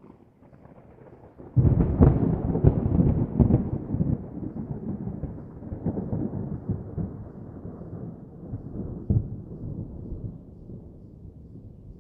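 A thunderclap about a second and a half in, with rolling rumbles and cracks that slowly fade over the following seconds, over a quieter steady hiss of rain.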